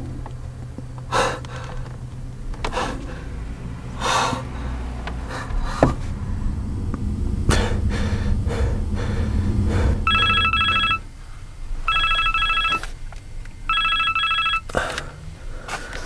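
A mobile phone rings three times with an electronic trilling tone, each ring about a second long. Before the rings come a man's heavy breaths after waking with a start, over a low rumble that swells just before the ringing.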